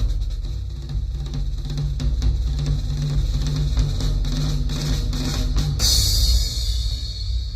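Drum-heavy music with a strong bass and kick drum, played through a loudspeaker and recorded on a phone about a meter away. A cymbal crash comes in about six seconds in and rings on.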